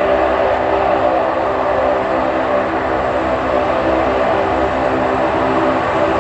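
Lockheed C-130 Hercules taxiing, its four Allison T56 turboprop engines running with propellers turning. A loud, steady drone made of several held tones.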